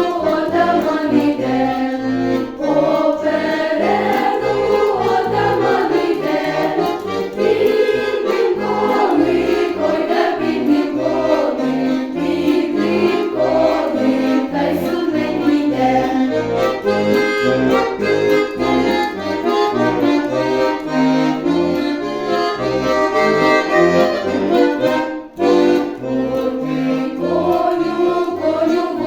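A choir singing a Ukrainian folk-style song with accordion accompaniment, the accordion's bass keeping a steady beat under the voices. The music drops out briefly about 25 seconds in, then carries on.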